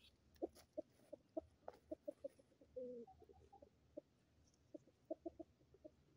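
Light Brahma hens clucking quietly: a string of short, low clucks, one longer drawn-out note about three seconds in, then another quick run of clucks near the end.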